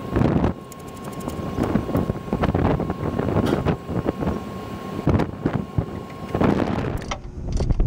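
Wind buffeting the microphone, with scattered metallic clicks and knocks as gloved hands work the nuts off the fan motor's mounting bolts. A faint steady whine stops about six seconds in, and the sound changes abruptly near the end.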